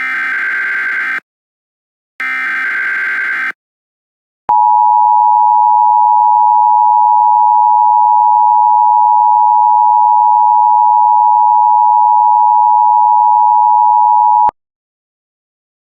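Emergency Alert System header tones: the last two SAME data bursts, each a harsh buzzy warble about a second long with a second's gap between, then the EAS attention signal, a loud steady two-tone beep held for about ten seconds that cuts off suddenly.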